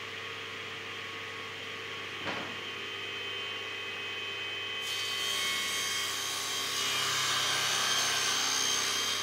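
Table saw running freely with a steady whine and a light knock about two seconds in, then getting louder and noisier as the blade starts cutting into a sheet of plywood near the end.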